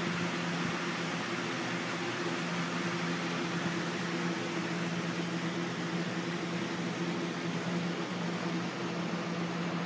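A steady mechanical hum with an even hiss, like a small motor or fan running without change.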